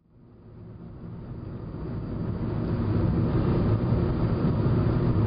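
Car cabin noise while driving at speed on an open road: a steady low rumble of engine and tyres. It fades in over the first three seconds, then holds steady.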